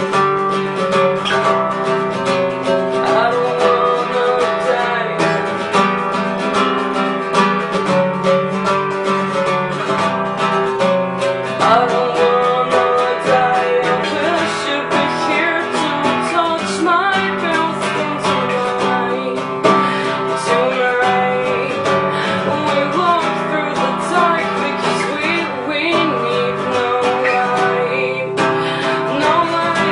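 Acoustic guitar being strummed and picked, with a singing voice over it for much of the time.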